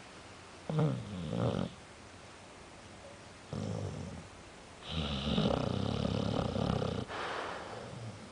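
A sleeping pet snoring in several breaths: a short two-part snore about a second in, a brief one near the middle, then a longer, louder snore of about two seconds, trailing into a softer breath near the end.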